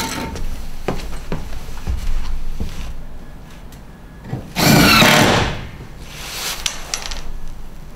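Cordless drill-driver running in one short burst of just under a second, about halfway through, driving a fixing through a fibre cement cladding board into the batten. Light knocks and handling clatter come before it.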